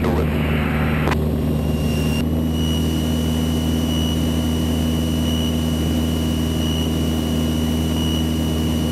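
Cessna 162 Skycatcher's Continental O-200 engine and propeller droning steadily in cruise flight, heard from inside the cockpit. A hiss cuts off sharply about a second in, and a faint steady high whine comes in at about two seconds.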